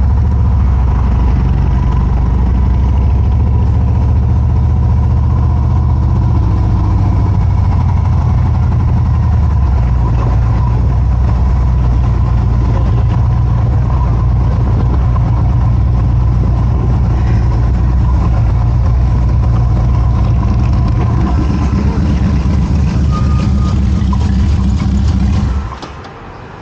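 Harley-Davidson Road Glide's V-twin engine running loud and steady as the motorcycle rides and then rolls into a gas station, with a rapid low pulse. It drops away sharply just before the end as the engine is shut off.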